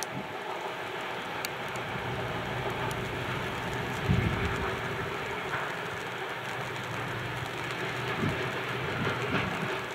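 Freight train wagons rolling along the track with a steady rumble. A heavier low thump comes about four seconds in, and a couple of lighter ones come near the end.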